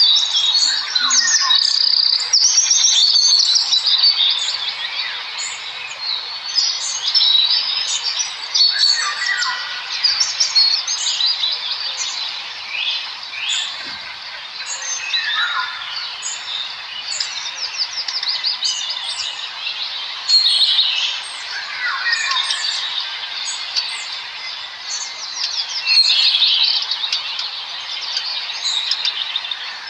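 Many small birds chirping and chittering at once, a dense overlapping chorus of short high calls and trills with no pause.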